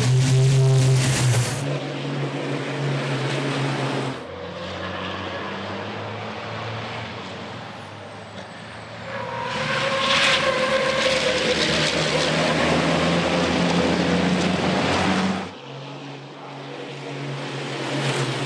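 Diesel engines of race trucks running hard as the trucks pass on a racing circuit, heard in several short clips that cut abruptly from one to the next. It is loudest near the start and again through the middle stretch.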